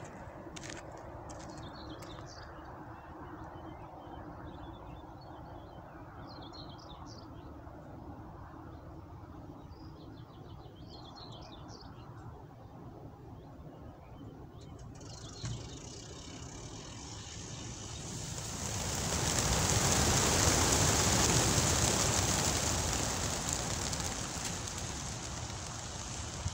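Faint small-bird chirps over a low steady hum, then a single clunk, followed a few seconds later by the swelling rush of thousands of racing pigeons' wings as the flock is released all at once and takes off; the whirring peaks within a few seconds and slowly fades as the birds fly off.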